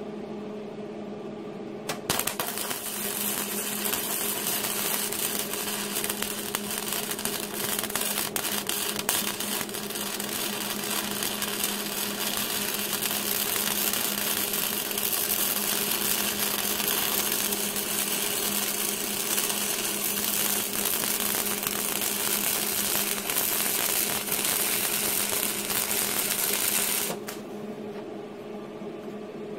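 Flux-core MIG welding with a Hobart Handler 120 welder: the arc crackles and sputters steadily, starting about two seconds in and cutting off sharply near the end. A steady low hum lies underneath.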